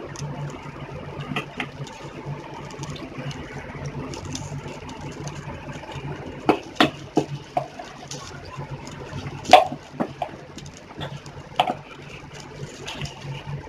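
Tamarind broth with drumstick pieces bubbling in a steel pot on a stove, heated on a high flame, over a steady low hum. A few sharp pops stand out, the loudest about nine and a half seconds in.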